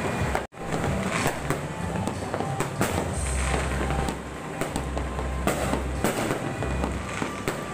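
Fireworks and firecrackers going off all around, a dense irregular run of bangs and crackles over a steady low rumble. The sound cuts out completely for a moment about half a second in.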